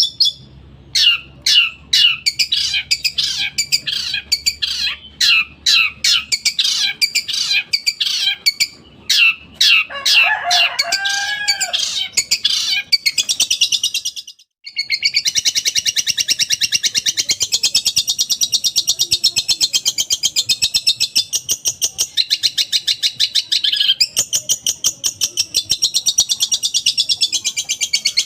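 Long-tailed shrike (cendet) singing loud and fast: a run of sharp, rapidly repeated high notes, then after a brief break about halfway, a dense unbroken chatter of quick high notes. The song carries imitations of other birds' calls.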